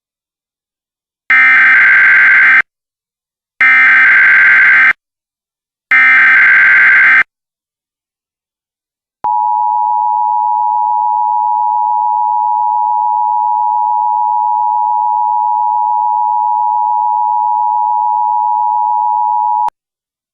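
Emergency Alert System opening tones: three one-second bursts of SAME header data squawk about a second apart, then after a short pause the two-tone attention signal held steady for about ten seconds before cutting off sharply. Together they mark the start of an emergency alert broadcast.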